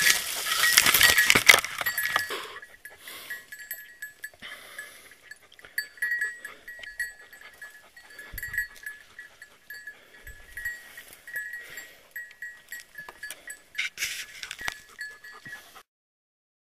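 A hunting dog's collar bell jingling off and on as the dog moves, with loud crashing and rustling through brush in the first couple of seconds. The sound cuts out to silence about a second before the end.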